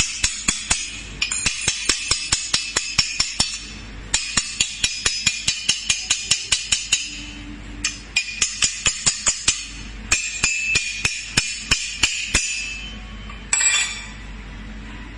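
Handheld fiber laser welder firing in pulses on sheet steel: sharp snaps about five a second over a hiss, in four runs of a few seconds each with short pauses between them, and one last brief burst near the end.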